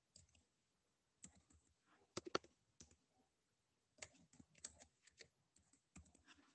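Faint, scattered keystrokes on a computer keyboard as a query is typed, a few at a time with pauses: a quick group about two seconds in and more between about four and five seconds.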